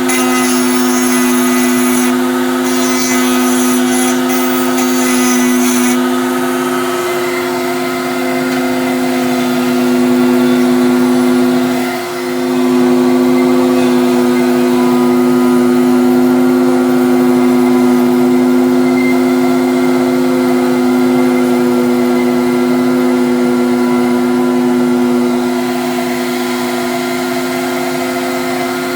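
A router in a router table running at a steady high speed together with a shop vac pulling its dust, the two motors giving a loud, steady hum. For about the first six seconds there is a rougher, hissing sound of the bit cutting wood, and the motor's pitch dips briefly twice, about seven and twelve seconds in.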